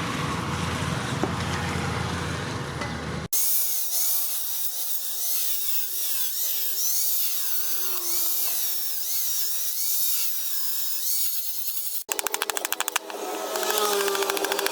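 Power tools working on the knife, in three clips cut hard together. The first, lasting about three seconds, is a noisy run with strong low rumble. The second holds repeated rising-and-falling whines. The last is a fast, even clatter.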